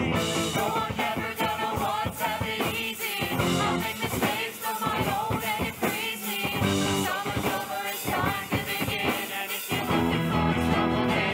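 Live pit band playing a rock-style musical theatre number, with a steady drum beat under keyboards, guitar and bass.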